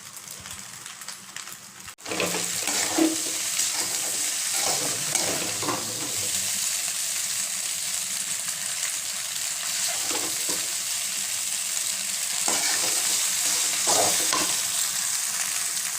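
Food sizzling in a hot frying pan, with a spoon stirring and scraping against the pan now and then. The steady sizzle starts after a brief break about two seconds in.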